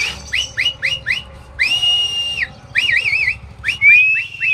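Loud, shrill whistling: a quick run of short rising whistles, a long held whistle, a warbling whistle, then more rising whistles near the end.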